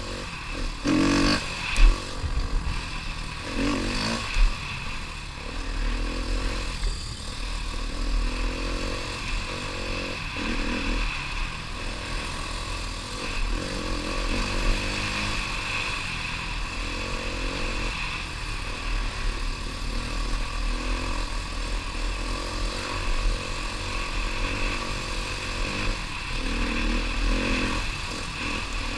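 Trail bike engine running as it is ridden along a rough dirt track, heard from the rider's helmet, with rises and falls in engine speed. A sharp knock comes about two seconds in and another at about four seconds.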